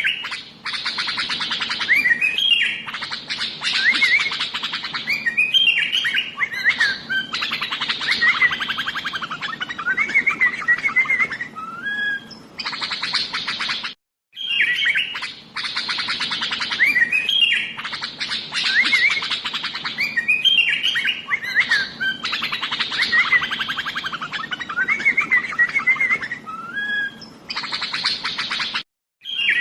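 Sooty-headed bulbul (kutilang) singing without pause: quick whistled, warbling phrases over a dense chattering. The recording is a loop that repeats about every 14 seconds, with a brief gap at each join.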